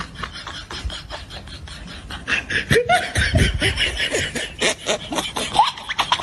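Laughter that gets louder from about two seconds in, over a run of short, evenly spaced clicks.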